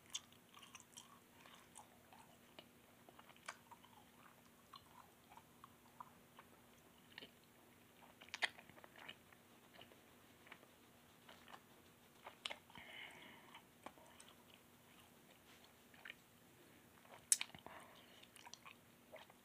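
Faint, scattered mouth sounds of a boy chewing a mouthful of hot jelly beans: soft wet clicks and smacks over near quiet, with a short breathy hiss a little past halfway.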